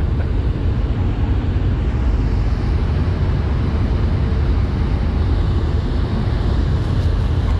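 Steady low rumble of a vessel's engines and machinery running, with a faint steady hum over it.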